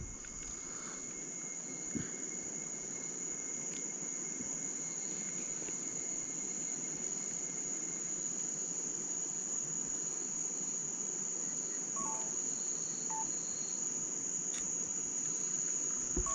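Night-time rain-forest insect chorus, a steady, high-pitched shrill drone that does not let up.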